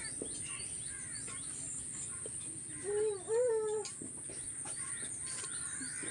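Small birds chirping on and off in the background, with a louder, short two-part pitched call about three seconds in.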